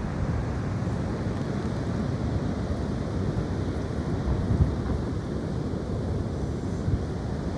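Strong gusty wind buffeting the microphone, a steady low rumble swelling with gusts about halfway through.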